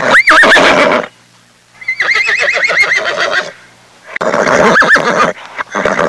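Horse whinnying three times, each call a high, quavering neigh. The middle call is the longest, at about a second and a half.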